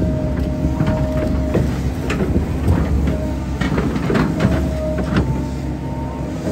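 Hydraulic excavator running, heard from the cab: a steady diesel engine rumble with a hydraulic whine that starts and stops as the boom and bucket move, and irregular knocks and clanks from the bucket and its linkage as it works the muddy embankment.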